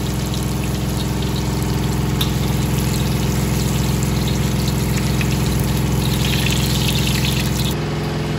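Garlic and ginger sizzling and crackling in hot oil in a wok while a spatula stirs them, over a steady low mechanical hum. The crackling grows denser about six seconds in.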